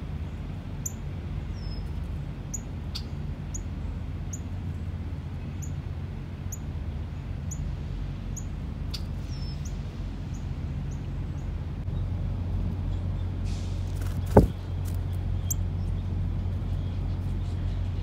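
A small songbird giving a run of short, high chip calls, one every half second to a second, over a steady low rumble. One sharp knock comes about three-quarters of the way through.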